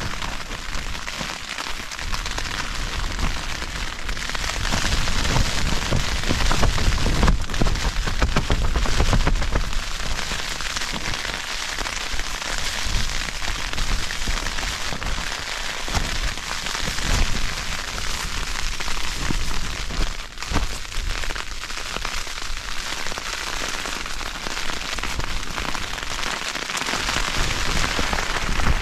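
Heavy rain pattering steadily on the nylon fabric of a bothy bag emergency shelter, with a low rumble of wind gusts that is strongest about five to ten seconds in.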